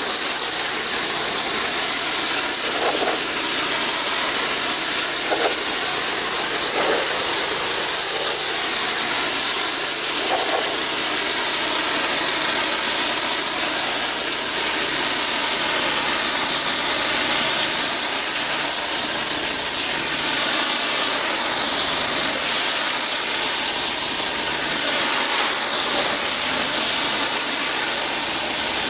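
Pressure washer spraying a fan of water onto a dark surface to rinse off cleaner foam: a loud, steady hiss of spray with a low, even hum beneath it.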